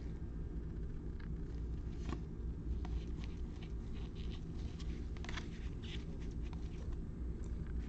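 Trading cards being handled: faint, scattered flicks and rustles as cards are slid and turned one after another, over a steady low hum.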